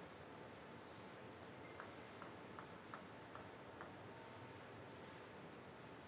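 Table tennis ball bounced by hand before a serve: six light, evenly spaced ticks, about two and a half a second, that stop a little under four seconds in, leaving near silence.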